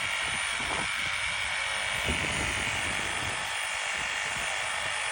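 Small handheld electric saw running flat out with a steady high-pitched whine as it cuts into wood.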